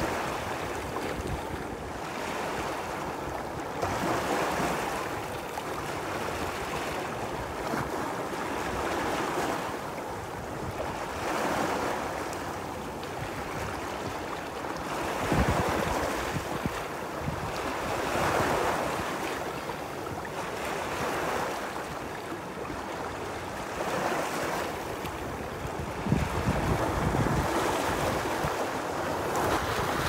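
Small lake waves washing over and splashing against flat shoreline rock, swelling and falling every three to four seconds, with heavier splashes about halfway through and again near the end.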